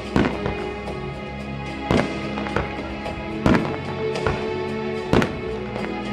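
Aerial firework shells bursting: four loud bangs about a second and a half apart, with smaller pops in between, over music playing throughout.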